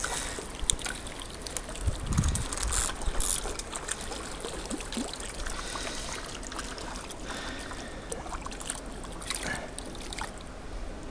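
Shallow stream running and trickling, with scattered sharp clicks and knocks from handling the fishing rod and reel.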